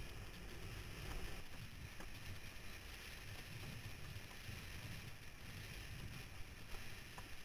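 Wind buffeting the microphone and water hissing past a windsurf board under sail, with a steady fluttering rumble.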